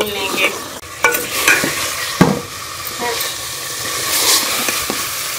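Stirring chongay, onions and beef in masala frying in a pot: steady sizzling with the scrape of the spoon and several knocks of it against the pot, the loudest about two seconds in.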